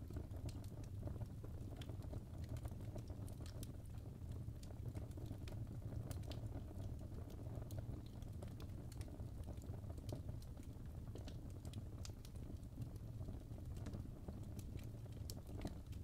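Fire crackling in a fireplace: irregular sharp snaps and pops scattered over a steady low rumble of burning.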